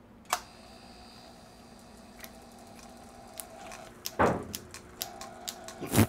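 Lathe motor fed from a 24 V pure sine wave inverter through a rheostat. A click is followed by a steady electrical hum and whine, then irregular clicking and two louder surges as the power is turned up. The inverter is struggling to start the motor.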